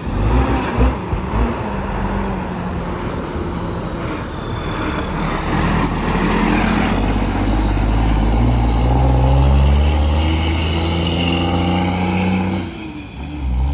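Heavy diesel dump truck's engine pulling past close by under load, its note rising as it accelerates. Near the end the sound drops briefly, then traffic engine noise resumes.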